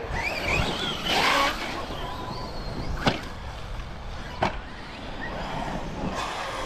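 Electric RC truck's brushless motor whining, its pitch rising and falling with the throttle, with two sharp knocks about three and four and a half seconds in.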